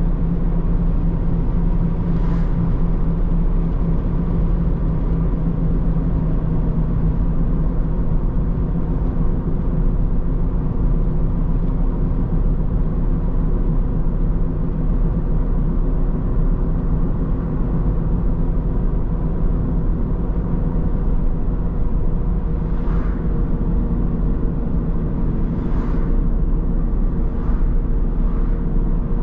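Car being driven: steady low road and engine rumble. A few faint brief knocks about two seconds in and again near the end.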